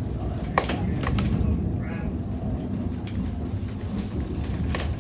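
Narrow-gauge railway carriage running slowly, a steady low rumble heard from inside the carriage, with a few sharp clacks: two about a second in and one more near the end.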